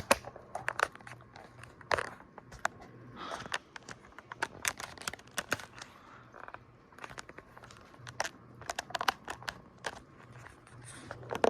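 Irregular clicks, scrapes and rattles of a phone being handled and fitted into a tripod mount, close to the microphone. Under them runs the steady low hum of a 1984 Emerson-built 1895 series ceiling fan motor running on high speed.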